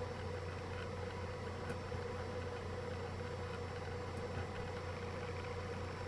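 Steady low electrical hum with a faint constant tone and hiss, unchanged throughout.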